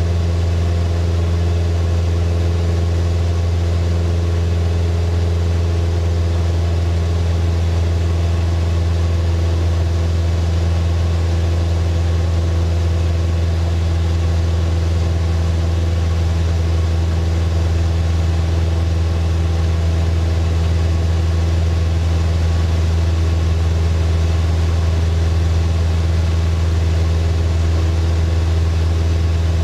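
Single-engine floatplane's engine and propeller droning steadily in cruise flight, heard from inside the cockpit: a loud, deep hum with a few steady higher tones over it and no change in pitch.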